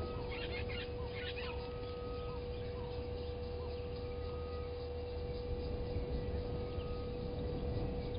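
Birds calling at a waterhole: two quick bursts of sharp calls in the first second and a half, a few soft short notes, and a thin whistle that comes and goes about four times. A steady hum and a low rumble run underneath.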